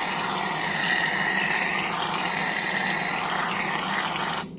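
Barbasol shaving foam spraying from an aerosol can: a steady hiss that stops abruptly near the end.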